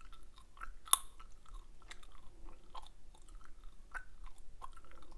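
Close-up wet chewing of soft Hubba Bubba bubble gum: irregular soft smacking clicks, with one sharp, much louder click about a second in.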